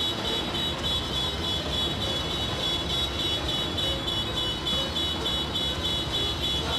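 A fire engine's engine running as the truck rolls slowly forward, with a rapid high-pitched electronic beeping, about four beeps a second, over it.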